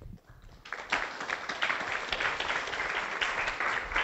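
Audience applauding: many hands clapping, starting about a second in and then holding steady.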